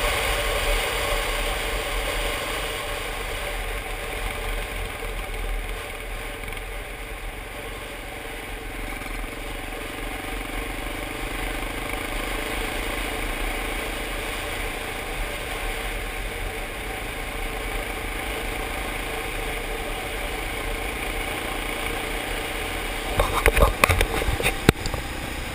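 Yamaha Ténéré motorcycle engine running at road speed, with wind rush. A few loud knocks and bumps come near the end.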